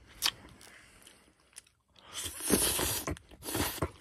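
Close-miked eating of yakisoba fried noodles: a short click near the start, then two loud bursts of slurping and chewing as the noodles are sucked into the mouth, the second about a second after the first.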